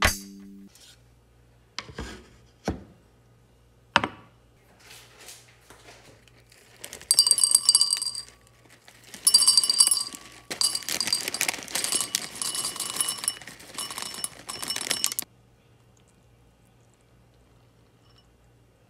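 Dry cereal poured into a glass jar in two pours, the pieces clattering against the glass and making it ring. A few single sharp knocks come before the pouring.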